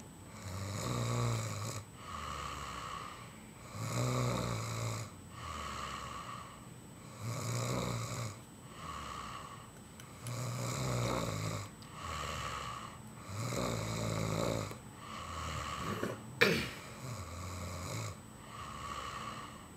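A man snoring in his sleep, one long snore about every three seconds, with a brief sharp sound about two-thirds of the way through.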